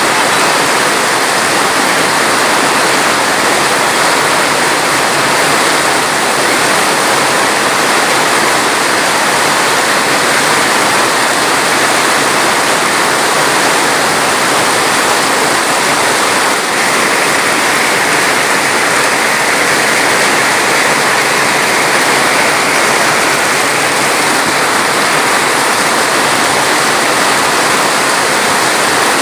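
Steady rushing water, like a waterfall or fast stream, running evenly without change.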